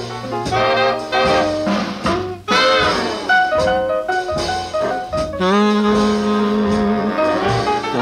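A 1947 R&B jazz orchestra recording played from a 78 rpm record: a saxophone and brass section plays riffs, sliding up into held chords about two and a half seconds in and again a little after five seconds, where one long chord is sustained.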